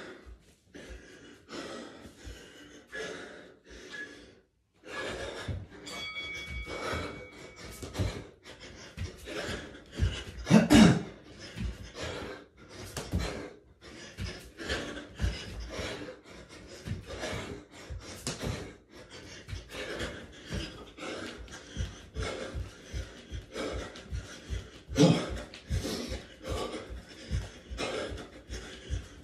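A man breathing hard and panting through burpees and jogging on the spot, with quick repeated thuds of feet and hands on the floor. One loud voiced breath comes about ten seconds in.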